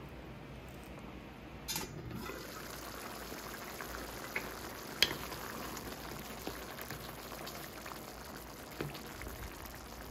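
Tomato and ground-beef stew bubbling at the boil in a stainless steel pan, a steady low bubbling hiss, with a few light knocks as a wooden spatula stirs it.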